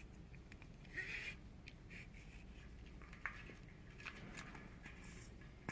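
Faint rustling and a few small clicks of a stainless steel wire being threaded through a plastic cap by hand.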